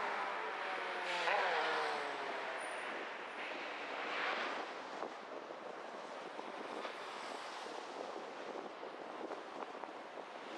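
Road and traffic noise while driving on city streets. About a second in, a vehicle engine goes by, its pitch dropping, and a brief rush of passing noise comes around four seconds in, over a steady background of tyre and traffic noise.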